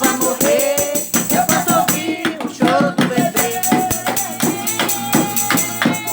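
Live gospel praise music: a hand percussion instrument like a tambourine keeps a fast, steady beat of about four strikes a second under a singing voice.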